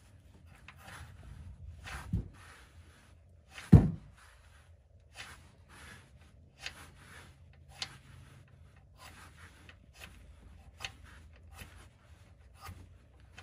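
Faint clicks and rubbing as fingers turn a loosened oil drain plug out of the oil pan by hand, with one loud low thump a little under four seconds in.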